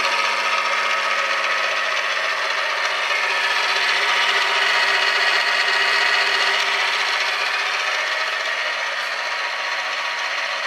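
Benchtop milling machine running on its first test after a rebuild of its brushed motor and gearbox. The motor and gears give a steady whine over a constant hum, growing slightly quieter toward the end.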